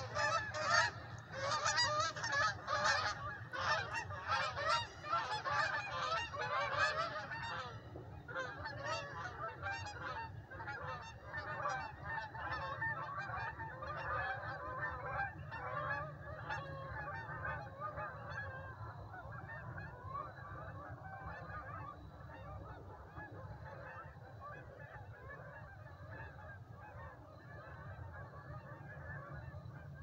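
A large flock of geese honking in flight overhead, many calls overlapping. The calls are loud for the first several seconds, then thin out and fade as the flock moves away.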